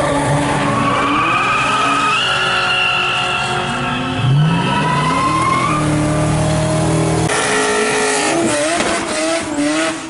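Chrysler Valiant's engine revving hard during burnouts, the pitch rising and falling, with the rear tyres spinning and squealing against the track. The sound changes abruptly twice, about four and seven seconds in, as the clips cut.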